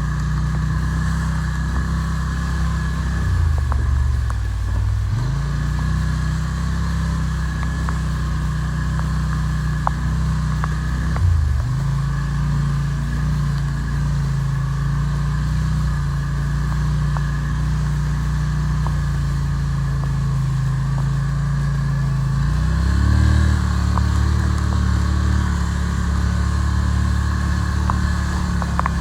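ATV engine running steadily while riding, the engine note dropping briefly twice and picking back up, then rising to a higher, steadier pitch near the end.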